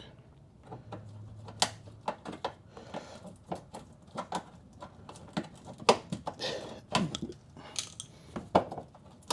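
Irregular light clicks and knocks of hard plastic parts and fasteners being handled while a mud flap is fitted to the car's wheel arch.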